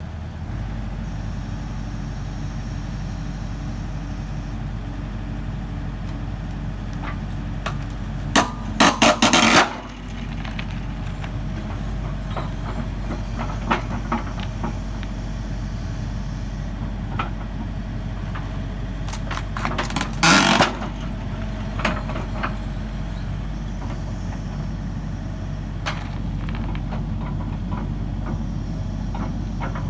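The diesel engine of a 13-ton Hitachi ZX130 excavator runs steadily while its hydraulic log splitter forces through a large ash log. A quick cluster of loud, sharp cracks comes about nine seconds in as the log splits apart, and there is another loud burst about twenty seconds in.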